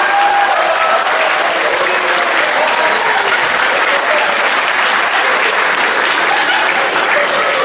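Audience applauding loudly and steadily, with crowd voices mixed in near the start.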